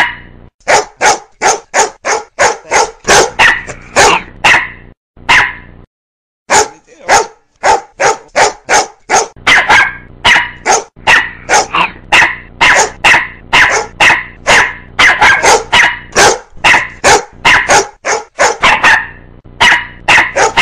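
A dog barking over and over in quick succession, about two to three barks a second, with a short break around five seconds in.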